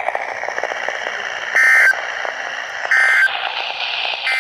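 Three short, buzzy Emergency Alert System SAME data bursts, about a second and a half apart, over steady radio hiss: the end-of-message code closing the warning just read.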